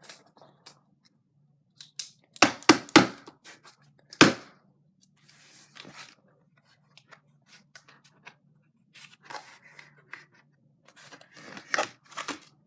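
Card packaging being jabbed and pried at with a pen: irregular clicks, scrapes and crinkles, with a cluster of sharp knocks between two and three seconds in and another about four seconds in.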